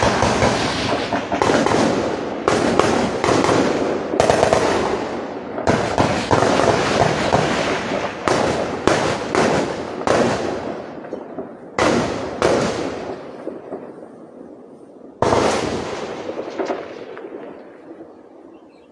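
Heavy gunfire: repeated bursts of shots that run together, each followed by a long rolling echo. It starts suddenly, keeps coming in fresh bursts, the last about fifteen seconds in, then the echo dies away.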